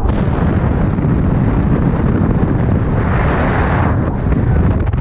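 Loud low rumble with wind buffeting the microphone, and a rushing hiss that swells about three seconds in and dies away a second later.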